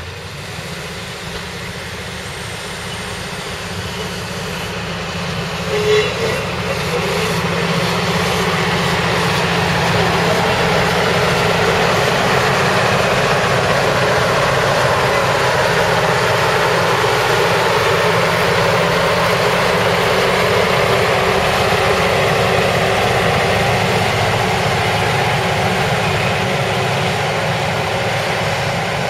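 Diesel railcar of the KiHa 58 type with its two DMH17H diesel engines running as it pulls out of the shed and passes close by. The engine sound grows louder over the first ten seconds, then holds steady. A brief high note sounds about six seconds in.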